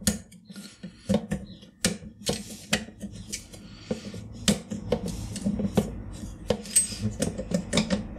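Focus plate of a 3D-printed microscope Z-stage being lifted by hand off its three threaded metal posts: a run of irregular small clicks and knocks as the plate and belt shift on the posts.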